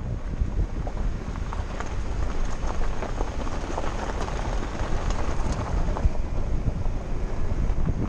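Vehicle driving up a gravel road: a steady low rumble of engine and tyres on gravel, with scattered small ticks of stones and wind buffeting the microphone.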